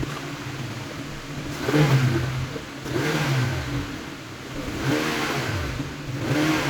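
Turbocharged car engine idling and revved four times, each rev rising then falling back to idle. The engine is being test-run just after its popped-off turbo inlet hose was refitted.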